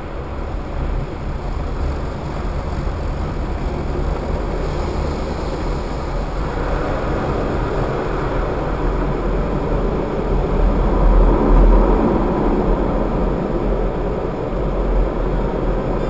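Car wash water jets spraying over the car's windshield and body, heard from inside the cabin, building up about five seconds in over a steady low rumble.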